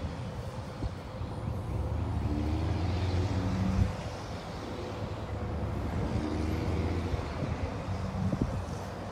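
A vehicle engine running with a low rumble that swells twice, with wind on the microphone.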